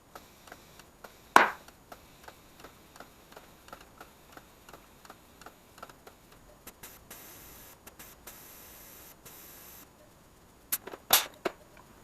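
Tire-mounting work on a wheel: a sharp click, then a steady run of light ticks about three a second, a few seconds of high hiss, and a cluster of sharp snaps near the end.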